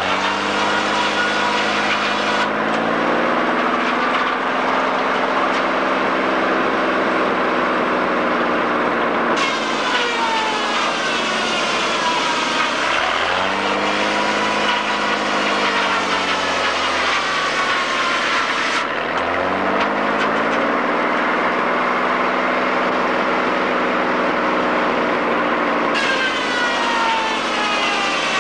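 Sawmill running with logs being sawn: the engine-driven saw's pitch sags and recovers several times as the blade works through the wood, with a higher whine that slides down in pitch at the start of cuts.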